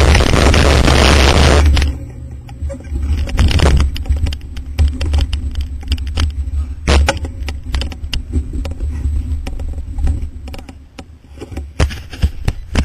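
Wind rumbling on a GoPro's microphone, with scattered clicks and rattles from the mountain bike and camera mount. Before that, a loud, dense sound cuts off suddenly about two seconds in.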